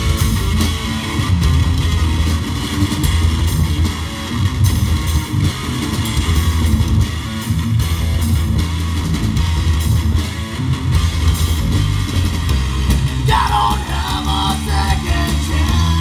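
Live rock band playing an instrumental passage: electric guitar, electric bass and drum kit together, with a higher melody line with bending pitch coming in about three-quarters of the way through.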